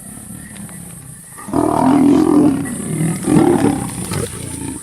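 Lions attacking a leopard: the big cats growl low at first, then break into loud fight noise about a second and a half in, with a second loud surge about three seconds in.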